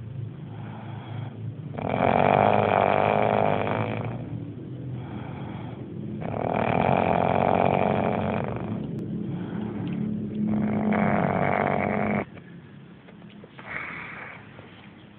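A person snoring: three long, loud snores about four seconds apart, with fainter breaths between. After the third snore, a little past twelve seconds in, it drops to a faint breath.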